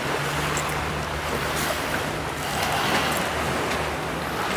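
Sea waves washing up on a sandy beach, the surf swelling a little about halfway through, over a steady low motor hum.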